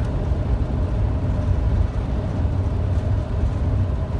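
Motorhome driving at speed, heard from inside the cab: a steady low drone of engine and road noise.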